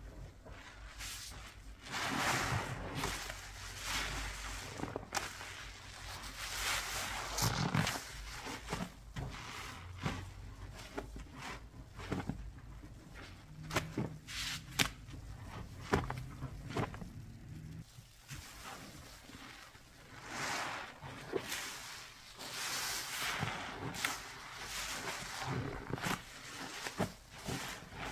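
Hand scrubbing with cleaning paste: irregular rubbing and swishing strokes, a second or two each, with scattered sharp clicks and knocks.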